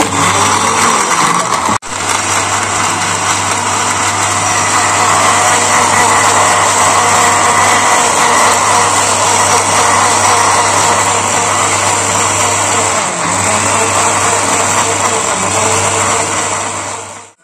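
Electric mixer grinder running steadily, blending mango pieces, curd and ice cubes. The motor cuts out for a moment about two seconds in, then runs on and stops just before the end.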